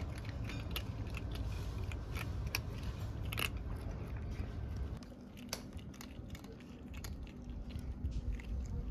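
Kittens crunching dry cat kibble: many small, irregular crisp clicks of chewing over a low steady rumble, a little quieter after about five seconds.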